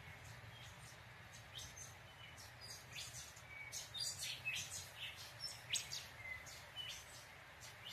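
Dry crackling and rustling as a dried flower head is crumbled by hand to release its seeds, a quick run of small crisp clicks that is busiest in the middle seconds. A few faint high chirps sound among them.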